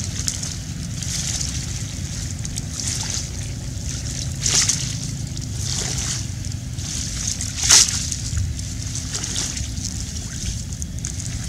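Water sloshing and splashing in the shallows, with a string of sharper splashes; the two loudest come about four and a half and almost eight seconds in. A steady low rumble runs underneath.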